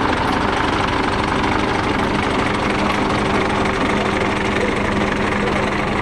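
A heavy vehicle's engine idling steadily, an even drone with a constant hum.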